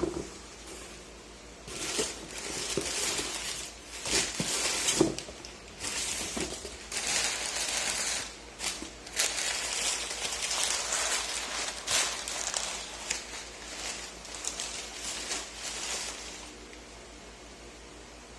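Packaging rustling and crinkling as it is handled, in irregular stretches with a few light knocks, starting about two seconds in and stopping a couple of seconds before the end. A single sharp knock at the very start.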